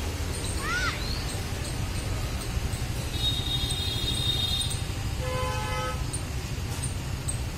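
Steady low outdoor rumble of distant traffic, with a short chirp about a second in, a high steady tone for about a second and a half a little past the middle, and a distant vehicle horn sounding briefly about five seconds in.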